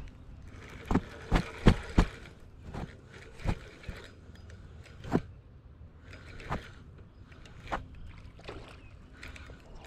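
A dozen or so irregular knocks and scuffs, the loudest a quick cluster of four about one to two seconds in. This is handling noise: a sleeve and a fishing rod's handle bumping and rubbing against a body-worn camera.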